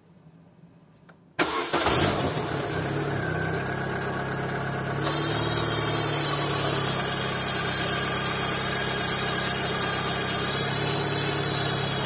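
Car engine starts abruptly about a second and a half in and settles into a steady idle. About five seconds in, a louder steady hiss joins the engine sound.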